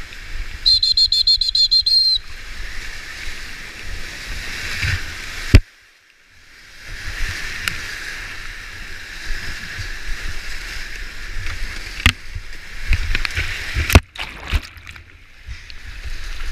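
Whitewater rushing and splashing around a creek kayak as it runs steep, high-water rapids, with paddle strokes and water slapping the boat. A short warbling whistle sounds about a second in. Midway a loud smack is followed by about a second of near silence as the boat plunges into the water, and another smack and dropout come near the end.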